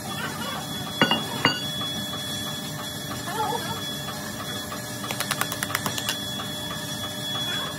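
Hand tools knocking and tapping on a sand casting mould: two sharp knocks about half a second apart, then a quick run of light taps for about a second and a half. Under them is steady workshop noise with a thin high whine.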